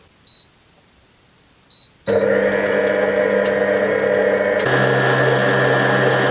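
Two short electronic beeps from a RAWMID Modern planetary stand mixer's touch panel, then its motor starts about two seconds in and runs steadily, its balloon whisk beating a thick fish-and-semolina mixture at low speed. The pitch of the hum changes about two-thirds of the way through.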